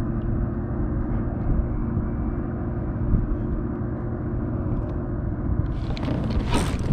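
Steady low rumble with a droning engine-like hum that fades about five and a half seconds in, followed by a brief burst of rustling handling noise near the end.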